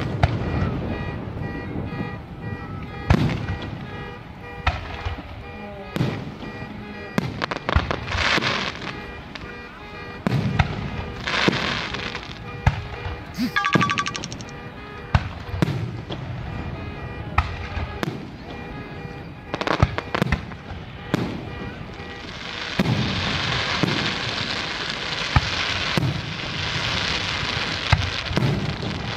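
Aerial fireworks display: shells bursting with repeated sharp bangs, and stretches of crackling, the longest near the end.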